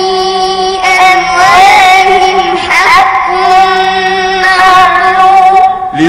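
Melodic Quran recitation in tajweed style: a single voice drawing out long held notes with rising and falling turns between phrases, with a short break near the end.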